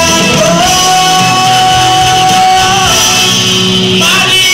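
Live band playing a rock-style song with singing; a singer holds one long note for about two seconds over the band.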